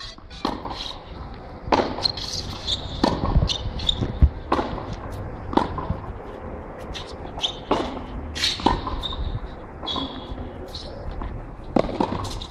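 Tennis balls struck by racquets and bouncing on a hard court during a rally, a sharp pock about every second.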